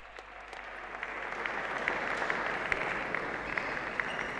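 Crowd in an arena applauding, swelling over the first second or two, with single claps standing out.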